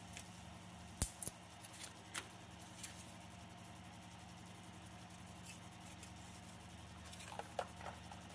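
Sparse clicks and taps of 3D-printed plastic stand parts being handled: one sharp click about a second in, a few lighter ones after it, and a quick run of small clicks near the end. A faint steady low hum sits underneath.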